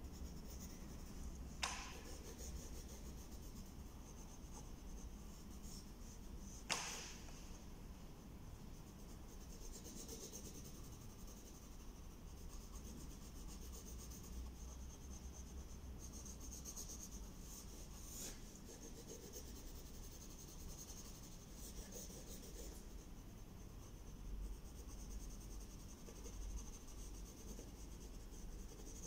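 Pencil scratching on drawing paper in faint stretches of strokes. A single sharp click about seven seconds in is the loudest moment.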